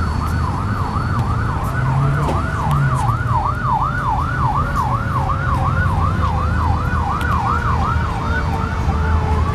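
Fire engine siren in yelp mode: a rapid up-and-down warble, about three sweeps a second, switching to a slow rising wail near the end, over a low rumble of engines and traffic.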